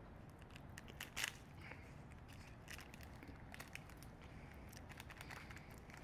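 Small clear plastic bag crinkling and crackling in the hands as a dried cricket is tipped out of it into a palm; faint scattered crackles, the loudest about a second in.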